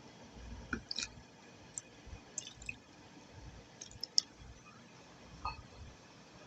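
Wet multani mitti clay paste being worked, giving a scattering of short wet squelches and clicks, about seven or eight at uneven intervals.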